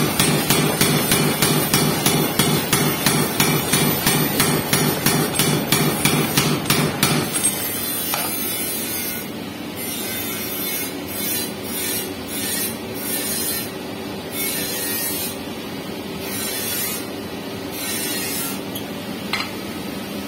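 Home-built mechanical forging power hammer striking metal in a fast, even run of heavy blows. The blows stop about seven and a half seconds in, leaving a quieter, steady machine noise with a single sharp click near the end.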